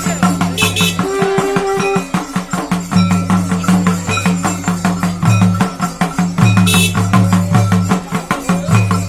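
Folk dance music with a fast, even percussion beat, jingling percussion and a repeating bass line.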